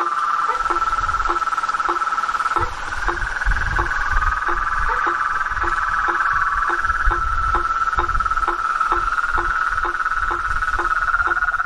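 Chorus of crickets or similar insects trilling steadily at a high pitch. A lower call repeats evenly about three times a second beneath it, over a low rumble.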